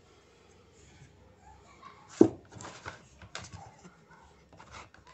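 A sharp knock about two seconds in, then scattered lighter knocks and scratches: a puppy being set down in a clear plastic tub on a digital kitchen scale, its claws scrabbling on the plastic.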